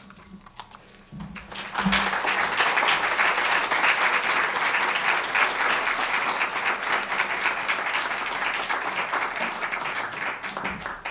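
Audience applauding, starting about a second and a half in and dying away near the end.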